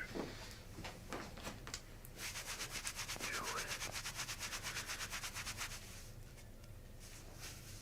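Rapid rhythmic rubbing, about ten strokes a second for three or four seconds, with softer single brushing sounds before and after it.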